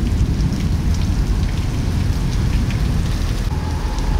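Heavy rain pouring down on the sea and the boat: a steady, dense rush with scattered drops pattering close by.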